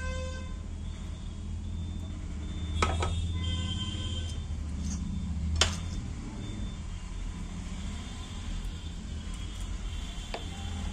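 Sharp clicks from handling wires and a screwdriver at the controller's screw terminal, two louder ones about three seconds apart, over a steady low rumble of road traffic in which vehicle horns sound briefly at the start and again around four seconds in.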